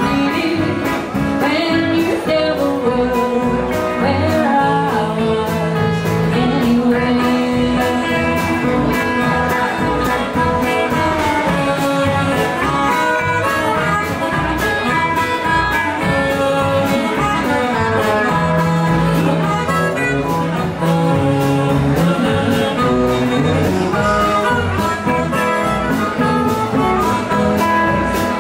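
Live blues band playing: harmonica lines over electric and acoustic guitars, upright bass and drums, with a woman singing at times.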